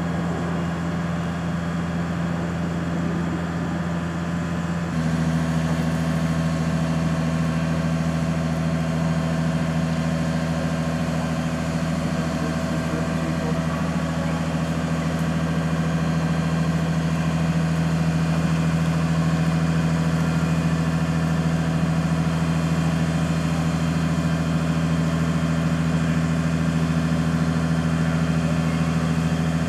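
Mobile crane's diesel engine running steadily under load while hoisting a steel bridge span, a constant low drone that steps up and grows louder about five seconds in.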